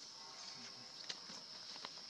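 Faint outdoor ambience: a steady high insect drone, with scattered light clicks and rustles of movement.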